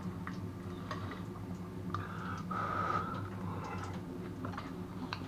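Knife and fork clicking and scraping faintly on a ceramic plate as a piece of deep-fried bacon is cut, in scattered light ticks over a steady low hum.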